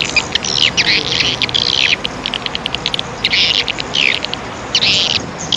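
Birds chirping repeatedly in quick, short calls over a steady rushing noise.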